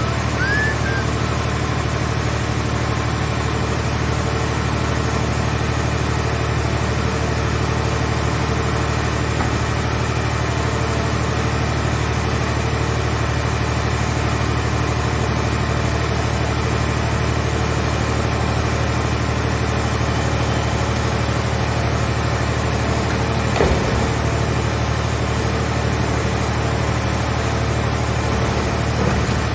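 Engine of a scrap car shell baler running steadily at an even idle, with a constant low hum. There is one short knock about 23 seconds in.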